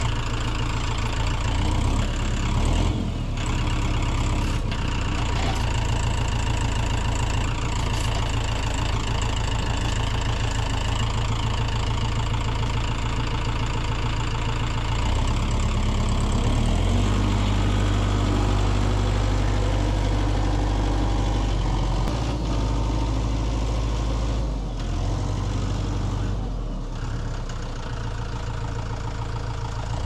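Compact farm tractor's engine running as its front-loader grapple lifts a log. The engine note steps up and stays higher about halfway through as it works under load, then grows a little quieter near the end as the tractor moves away.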